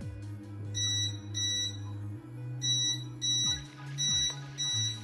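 Qidi Tech X-PRO 3D printer beeping: six short, high beeps of about half a second each, over background music with low held notes.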